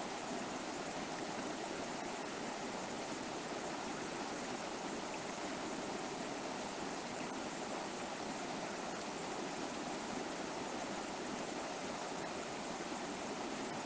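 River water flowing over rocks, a steady rushing and burbling with no change in strength.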